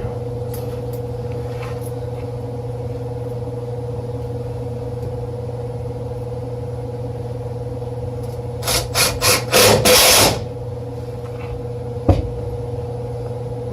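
A cordless drill-driver driving a screw in four short pulses and then one longer run, over a steady mechanical hum; a single sharp click follows a couple of seconds later.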